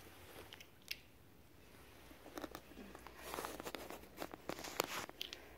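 Crunching, scuffing footsteps on gritty, muddy rubble, a few steps in quick succession starting about two seconds in.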